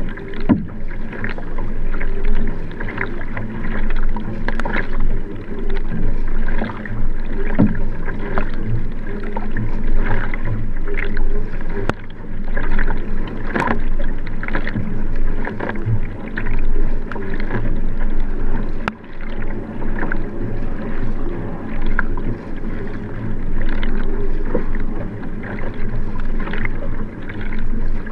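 Paddle strokes of a Nelo Vanquish 3 sprint racing kayak, the blade catching and splashing on alternate sides in a steady, regular rhythm, with water washing against the boat. Heard from a camera fixed on the kayak's stern.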